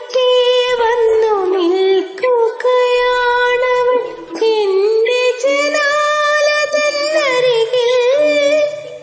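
A high female voice singing a slow rain song in long, drawn-out phrases with vibrato, over a faint low accompaniment.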